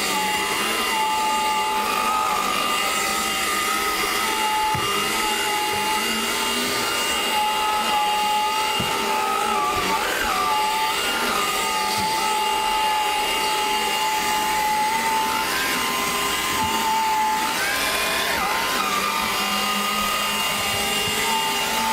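Craftsman V20 cordless stick vacuum running steadily as it vacuums the floor, its motor whine wavering slightly in pitch.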